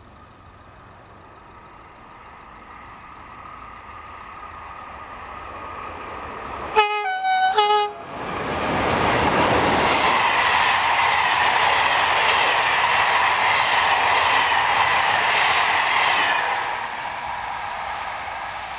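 An SNCF 'nez-cassé' electric locomotive hauling Intercités Corail coaches approaches at speed and gives two short horn blasts about seven seconds in. The train then passes with a loud, steady rush of wheels and coaches for about eight seconds, and the noise drops away near the end.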